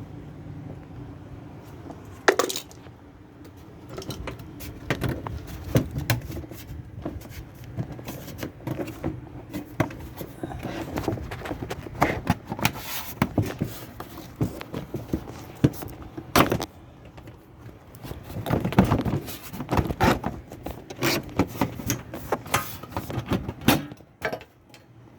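Irregular metallic clinks, rattles, knocks and scrapes of hand tools and washing-machine parts being worked loose during disassembly, over a steady low hum.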